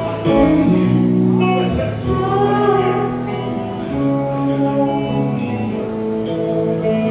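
A country band plays the song's instrumental opening: guitar chords under held notes, with a lead line that slides and wavers between pitches in the middle.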